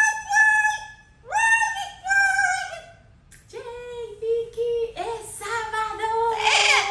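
Amazon parrot singing in a human-like voice, mimicking a song: a couple of sung phrases, a short pause about three seconds in, then a run of short, level notes.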